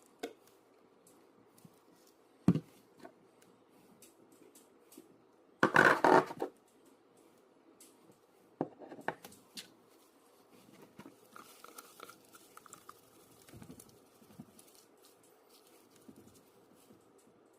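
Hands handling something at close range: scattered taps and clicks, a louder crinkling, tearing burst about six seconds in, then soft rustling and patting near the end.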